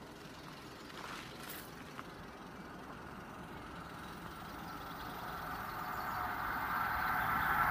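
Approaching Grand Central passenger train: a steady rumble and rail hiss growing steadily louder as it nears.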